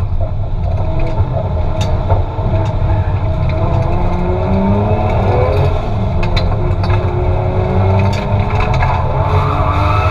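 Nissan Silvia S15's swapped Toyota 2JZ straight-six with a T-78 turbo, heard from inside the cabin, revving up and down hard at full throttle while drifting. A few sharp clicks come through at intervals.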